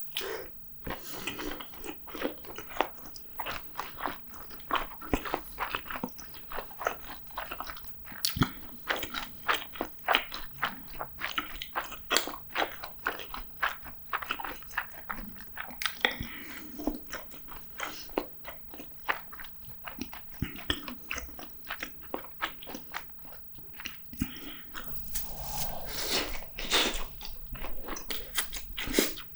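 A person eating close to the microphone: steady biting and chewing with many quick, irregular mouth clicks and smacks, busiest near the end.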